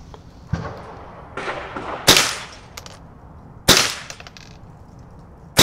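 Winchester Model 74 .22 Long Rifle semi-automatic rifle firing three sharp shots, about a second and a half to two seconds apart, the last at the very end. A fainter knock comes about half a second in.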